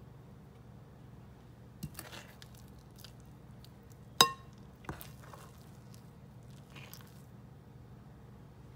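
A metal serving spoon scooping thick muffin batter and dropping it into a muffin tin: a few soft knocks and scrapes, and a little past four seconds in one sharp clink of the spoon against the dish with a brief ring.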